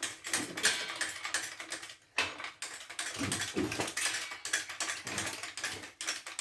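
Rapid, irregular clicking and rattling of hand tools and metal parts being worked on a car, with a short break about two seconds in.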